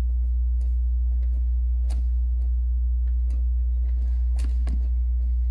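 Badminton rally: sharp clicks of rackets striking the shuttlecock, about one a second, the strongest about two, three and four and a half seconds in. A steady low hum runs under them.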